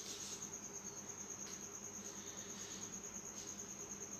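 A cricket trilling steadily: a faint, continuous high-pitched pulsing trill.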